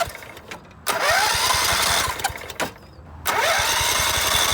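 Electric starter cranking the 16 hp Kohler Command engine of a riding mower in two tries, each starting with a rising whine as the starter spins up, the second one longer. The engine does not catch, the sign of the no-spark fault in the ignition coil wiring.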